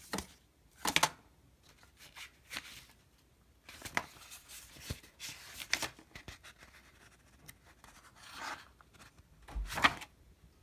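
Paper envelopes and cardboard packaging being handled and shuffled: a string of irregular rustles and crinkles, loudest about a second in and again near the end.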